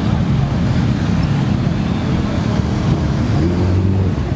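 Motorcycle engines running among a crowd, a steady low engine drone with one engine coming up louder about three and a half seconds in.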